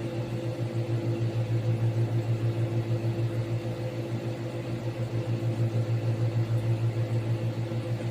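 Nissan Patrol engine idling steadily, a low even hum with a regular pulse.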